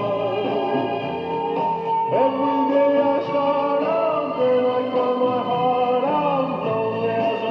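A pop song with a male voice singing over guitar and backing instruments, played back from a cartridge on a restored Belair 8-track tape player.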